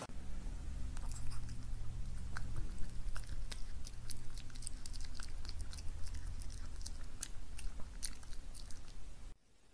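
A small white dog chewing and smacking on noodles: many quick wet clicks of mouth and teeth, over a low steady hum. The sound stops abruptly near the end.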